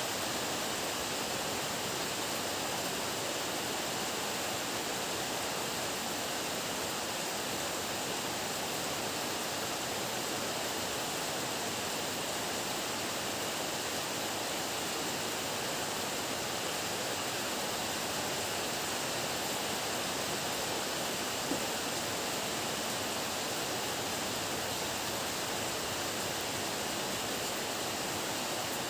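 Heavy rain falling as a steady, even hiss, unchanging throughout.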